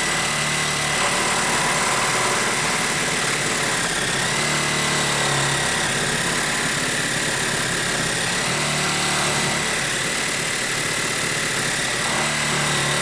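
DeWalt 12V Xtreme brushless reciprocating hacksaw (DCS312) running steadily with its metal blade sawing through 1-inch black steel pipe clamped in a vise. There is a steady high whine over the rasp of the blade.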